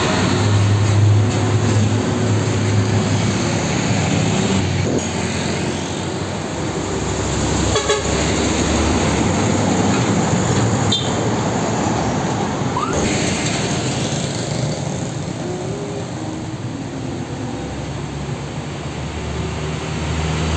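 Heavy diesel trucks driving past one after another on a town street, engines running low and steady, with tyre and traffic noise.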